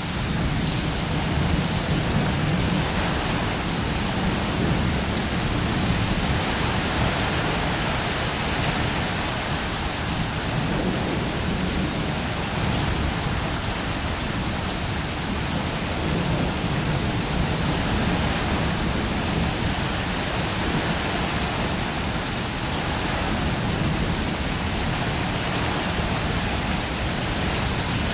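Steady rain of a thunderstorm, with low rumbles of thunder swelling and fading now and then.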